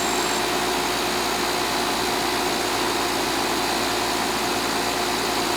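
Central air-conditioning outdoor condensing unit running steadily: an even mechanical hum and rush with a few constant tones.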